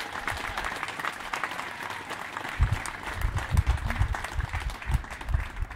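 Wedding guests applauding, a dense patter of many hands clapping. From about the middle on, low rumbling thumps come in under the clapping, like wind buffeting the microphone.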